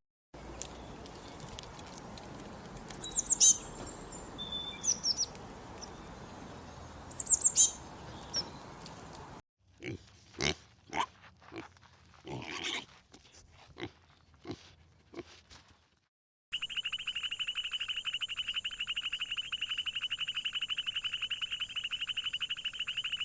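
A run of separate animal recordings: a few high bird chirps over a steady background hiss, then a series of short grunting calls, then a steady, fast-pulsing trill that runs on to the end.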